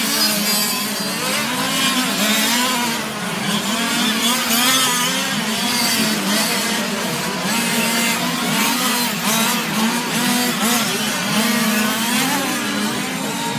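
Several 1/5-scale radio-controlled GT cars' small two-stroke petrol engines buzzing together while racing, their pitches rising and falling as the cars accelerate and slow for the corners.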